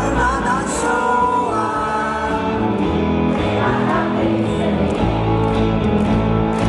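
Live band music with a male lead vocal singing into a microphone.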